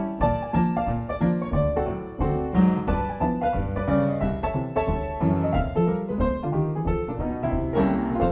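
Background piano music, a quick flowing run of notes.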